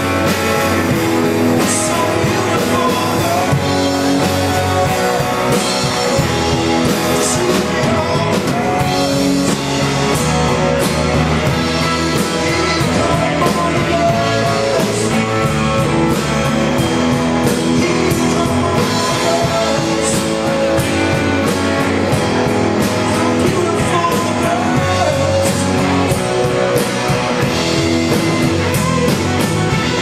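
Live rock band playing: guitars over a drum kit with cymbals, loud and steady.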